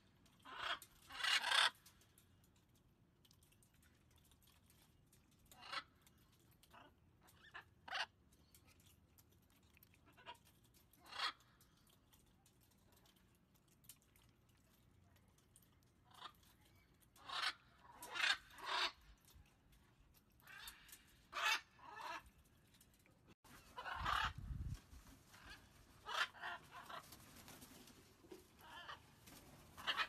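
Blue-and-gold macaws giving short, harsh squawks and croaks at irregular intervals, sometimes several in quick succession, with quiet gaps between. A brief low rumble comes about two-thirds of the way through.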